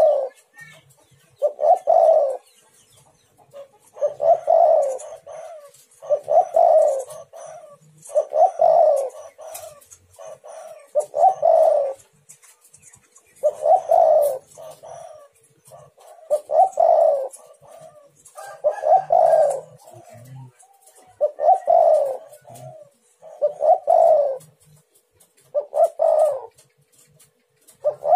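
Spotted dove (tekukur) cooing: a short phrase of low coos, repeated about every two seconds.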